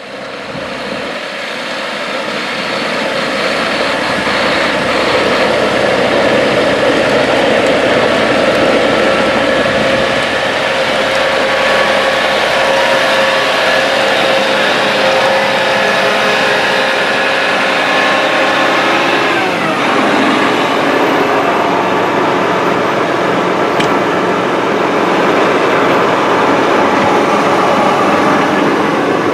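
John Deere 8RX 370 four-track tractor driving on gravel: its engine and rubber tracks rolling over the bogie wheels give a steady rumble and whine. It grows louder over the first few seconds as it comes near, and the pitch drops and shifts about two-thirds of the way through.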